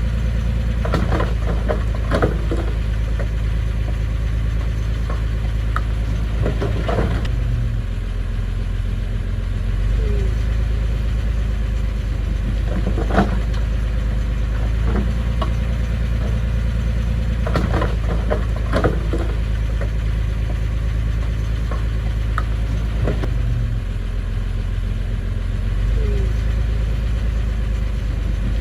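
Diesel engine of a piece of earthmoving equipment running steadily, with scattered metal clanks and knocks. The engine note dips and comes back up twice, about eight seconds in and again near twenty-four seconds.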